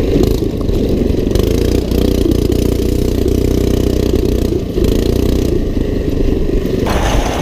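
Small single-cylinder four-stroke go-kart engine running under load while riding off-road, its pitch rising and falling with the throttle and dipping briefly a little before the five-second mark. A harsher, noisier stretch comes near the end.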